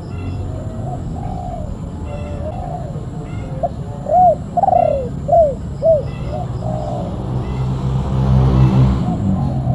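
Spotted doves (tekukur) cooing in a string of short, arched coo notes, strongest and clearest about four to six seconds in. A swell of rushing noise rises near the end.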